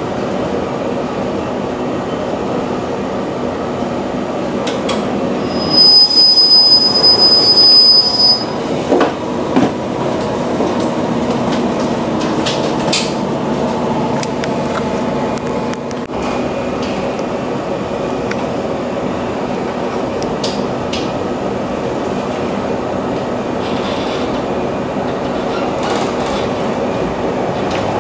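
485-series electric train running slowly, heard from inside the carriage: a steady rumble of wheels on rail with scattered clicks. About six seconds in, a loud high-pitched wheel squeal lasts about two and a half seconds.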